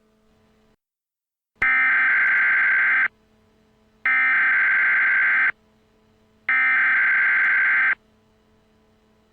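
Emergency Alert System SAME header: three bursts of harsh, screechy digital data tones. Each lasts about a second and a half, with about a second between them, and they mark the start of a new alert message.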